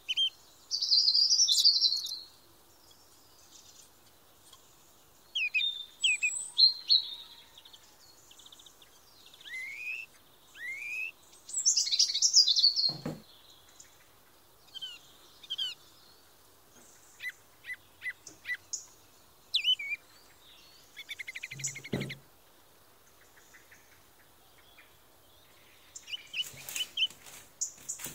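Birds chirping and singing: a varied run of short chirps, rising whistled notes and quick trills with brief pauses between. Two dull knocks, about halfway through and again a little later.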